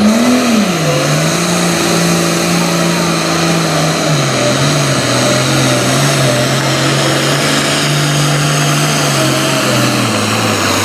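Super farm class pulling tractor's diesel engine at full throttle under heavy load, with a loud roar throughout. Its pitch jumps briefly at the start, then sags in steps as the sled pulls the engine's revs down.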